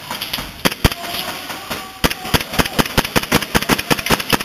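Airsoft guns firing: two sharp shots just under a second in, then from about two seconds in a rapid run of shots, roughly eight a second.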